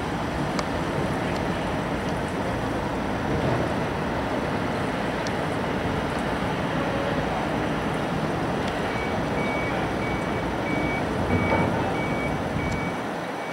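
Steady noise of heavy construction machinery at work in an excavation pit. A reversing alarm starts beeping about two-thirds of the way in, one high tone about twice a second.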